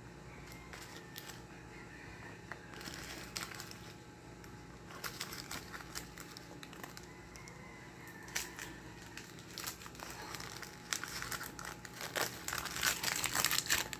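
Plastic food packaging crinkling and rustling in intermittent crackles and light clicks, busier near the end.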